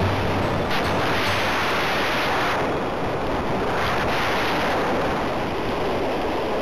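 Airflow rushing over a model aircraft's onboard camera microphone: a steady hiss that swells twice. A faint low hum fades out about a second and a half in.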